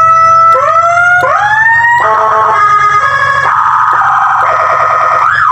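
An M200 electronic siren plays loudly through a QZ 100-watt siren speaker, cycling through its tones. First come repeated rising sweeps that climb and then hold. About two seconds in it switches to a rapid stepped warble, and near the end to quick up-and-down sweeps.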